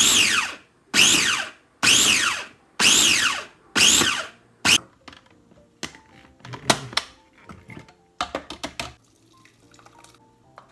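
Ambiano food processor pulsed six times about a second apart, each pulse a short whir that drops in pitch as the blade slows, chopping a tomato purée. After that come plastic knocks and a quick run of clicks as the lid and bowl are handled, with background music underneath.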